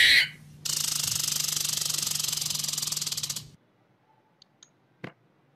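Squirrel chattering: a short sharp call, then a fast, buzzing run of chirps for about three seconds that cuts off, followed by a few faint clicks.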